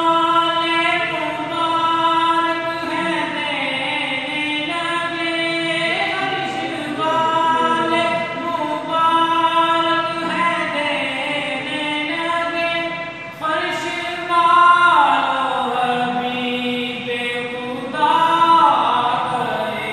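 A man singing a naat, Islamic devotional verse, solo and unaccompanied, in long held notes that bend and ornament in pitch. The lines come in phrases of about six or seven seconds, with a short breath between them.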